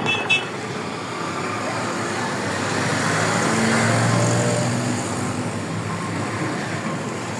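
Road traffic: a motor vehicle passing by, its engine and tyre noise rising to a peak about four seconds in and then fading.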